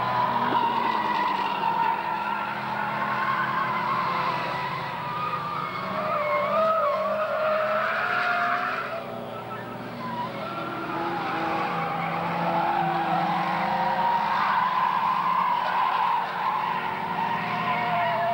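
Several small saloon race cars' engines running hard in a pack, their pitches rising and falling as they brake and accelerate through the corners, with a brief lull about nine seconds in.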